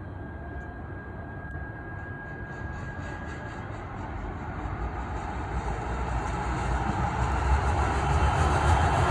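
A train approaching, its rumble and rolling noise growing steadily louder.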